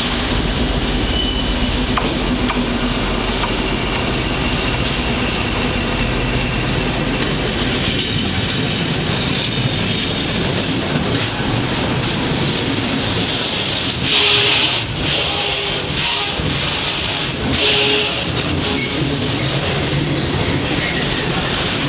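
Freight train hauled by a CP 1400-class diesel locomotive rolling directly over the microphone, its wagons' wheels running along the rails with a steady loud rumble that is heaviest in the low end for the first several seconds. About two-thirds of the way through come two short, high-pitched wheel squeals a few seconds apart.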